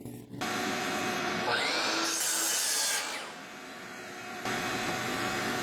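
Power saw cutting 2x4 lumber to length: it runs loud through a cut, drops back to a quieter run, then cuts again, with the motor's pitch sweeping up about a second and a half in.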